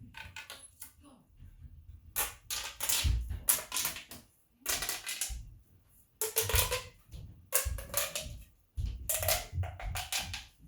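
A red plastic pop tube (pleated stretch-tube fidget toy) being pulled out and pushed back in again and again. Each stroke is a burst of crackly clicks with a slight ringing hum, roughly once a second from about two seconds in.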